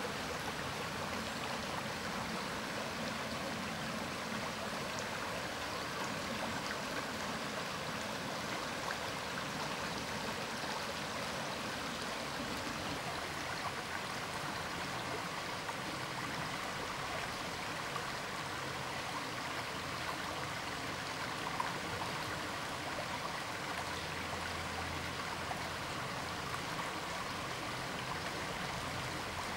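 Steady rushing of running water, like a small stream, continuing unchanged throughout.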